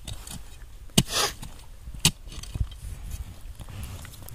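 Digging in dry soil with a ribbed steel bar and bare hands: two sharp knocks about a second apart, the first followed by a short scrape of loose earth.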